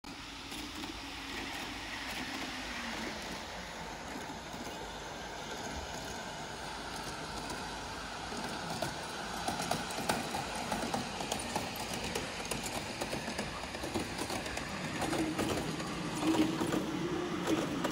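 Scale-model Shinkansen train running along the layout's track: a steady rolling noise with light rail clatter. A low hum comes in about fifteen seconds in.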